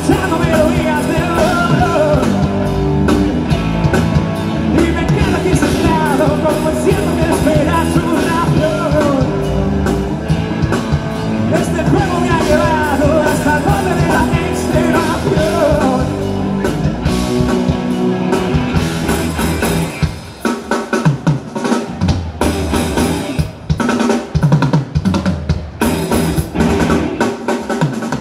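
Live rock band playing, with singing over a full drum kit. About twenty seconds in the music thins out to mostly drums: separate kick, snare and cymbal hits with short gaps between them.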